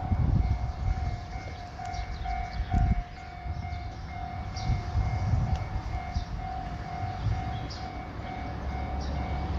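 Japanese level-crossing electronic warning bell ringing, one tone repeating rapidly and evenly, over a low rumble.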